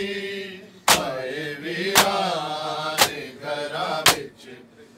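Matam: a group of men slapping their bare chests in unison, four sharp strikes about a second apart, with male voices chanting a mourning noha between the strikes.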